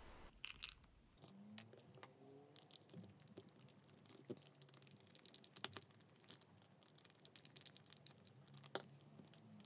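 Near silence with faint scattered clicks and small scrapes of a small screwdriver turning a screw in a plastic gear and wheel hub. The sharpest click comes a little past halfway, with another near the end.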